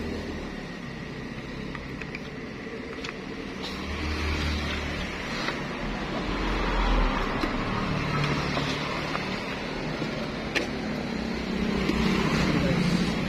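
Background motor-vehicle noise, a low rumble that swells and fades as vehicles pass, with a few sharp light clicks.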